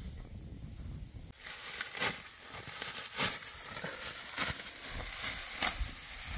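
Dry wheat stalks crunching and crackling in quick, irregular strokes. The sound starts suddenly about a second and a half in, with a few louder crunches.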